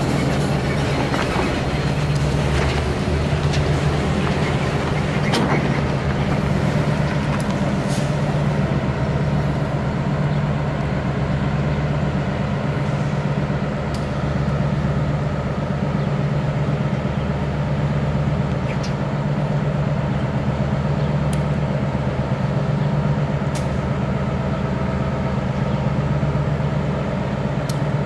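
Steady drone of an idling diesel engine, with a few faint clicks.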